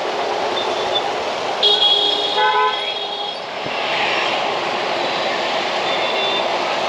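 Busy road traffic passing steadily, with vehicle horns honking: a couple of horn blasts about two seconds in and a short toot near the end.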